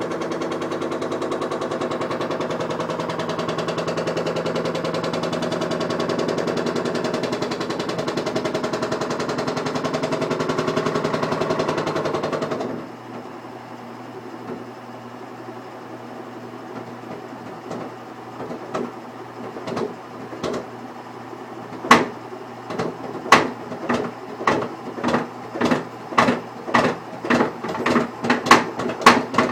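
Washing machine running with a steady mechanical whir that cuts off about thirteen seconds in. Then it knocks repeatedly against something, the knocks getting faster and louder toward the end, at about two a second. This is the noise that persists after two new vibration shock absorbers were fitted.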